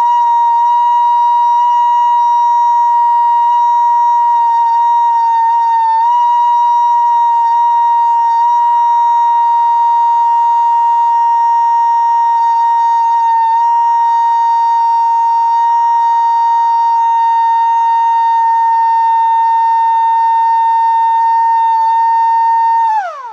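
Modified MS-190 mini electric siren sounding the alert signal: one steady tone held for over twenty seconds, with a brief dip in pitch about six seconds in. It winds down sharply right at the end.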